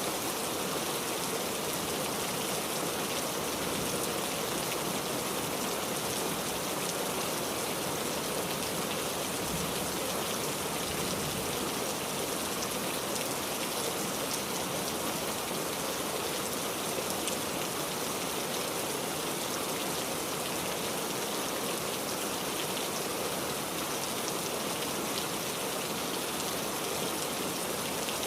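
Steady rain, a dense pattering of raindrops on a surface with no letup.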